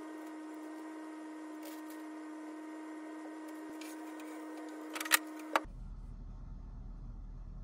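Two sharp knocks about five seconds in, as a small wooden table is moved, over a steady low hum.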